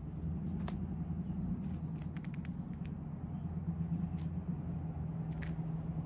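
Scattered sharp clicks and taps of hazelnut shells being handled and opened by a feeding animal, over a steady low hum. About a second in, a high steady tone holds for nearly two seconds.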